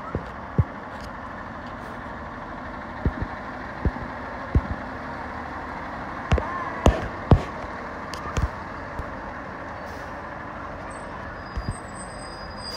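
Fire engine running as it pulls away, a steady rumble under several short, sharp thumps.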